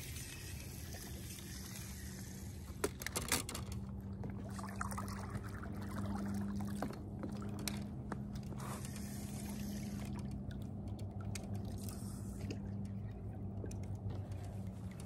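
Water trickling and sloshing, with a few sharp clicks about three seconds in over a steady low hum.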